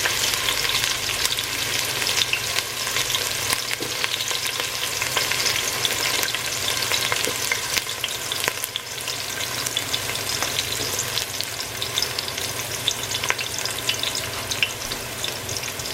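Chopped onions frying in hot oil with whole spices, a steady sizzle full of small crackles.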